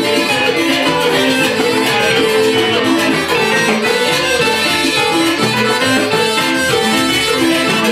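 Cuban dance band playing live, the instruments keeping up a steady, even rhythm with repeating bass notes.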